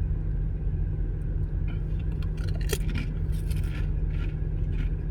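Crunching of a ridged potato chip being bitten and chewed, a run of crisp crunches starting about two seconds in, over a steady low rumble.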